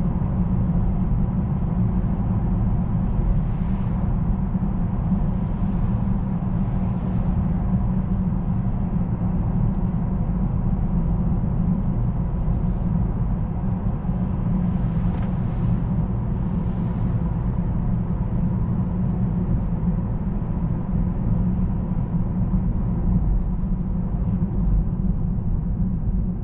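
Steady low drone inside the cabin of a 2019 Bentley Continental GT cruising at an even speed: engine and tyre-on-road noise, with no change in pitch or level.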